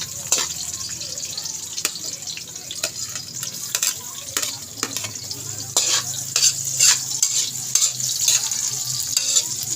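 Garlic, ginger and onion sizzling in hot cooking oil in a pan, with a steady hiss. They are stirred with a cooking utensil that scrapes and taps against the pan in many short clicks.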